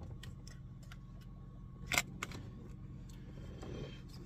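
Scissors being handled to cut open a plastic snack bag: one sharp click about halfway through, with faint small ticks and a brief rustle near the end.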